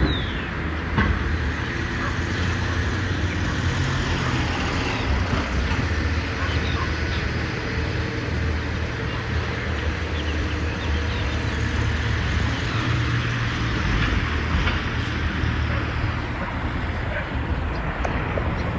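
Scattered short bird calls from birds flying overhead, over a steady low rumble.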